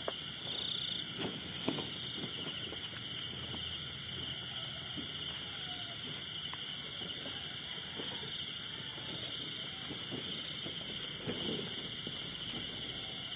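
Night insect chorus: crickets chirping steadily and high-pitched, with a faster pulsing trill joining about nine seconds in and again near the end. Faint rustling and steps through dry undergrowth come and go.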